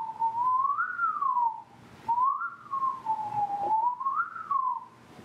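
A man whistling a slow, wandering tune in one clear tone that rises and falls, with a short break for breath about two seconds in.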